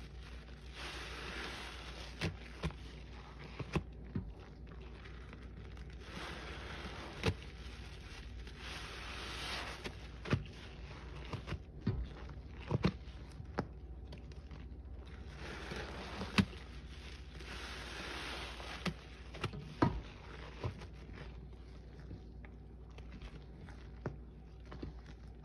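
A sponge caked with Lime Ajax cleanser paste being squeezed and kneaded by gloved hands in a bowl of thick suds and water: wet, fizzing squelching that swells three times, with sharp pops and clicks scattered through.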